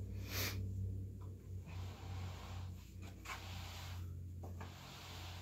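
Soft rustling and handling noises, a handful of short swishes, over a steady low hum in a quiet room.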